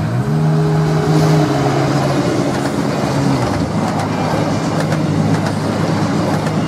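DB Class 628 diesel multiple unit passing close by, its engine and running noise swelling as it goes past, with sharp wheel clicks from about four seconds in. Background music plays underneath.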